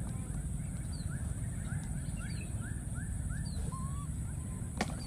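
Outdoor animal sounds over a steady high-pitched hum and a low rumble: a quick run of about seven short rising chirps in the middle, a few fainter high peeps, and one sharp click near the end.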